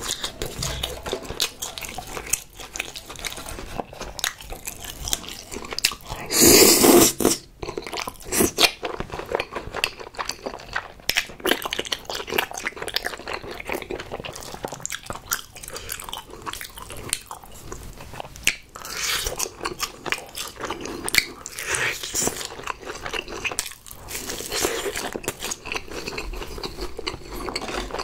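Close-miked chewing and crunching of a crumb-coated, deep-fried Korean hot dog: a steady run of short crisp crunches and wet chews. The loudest moment is a noisier burst lasting about a second, about six and a half seconds in.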